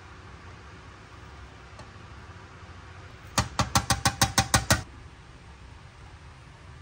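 A quick run of about ten small, hard plastic clicks, about seven a second for roughly a second and a half, as a tiny toy bottle and jar are knocked together in the hands.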